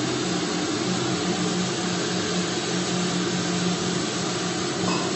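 Steady kitchen noise at the gas stove where masala is cooking in an iron kadai: an even rushing hiss with a faint low hum underneath.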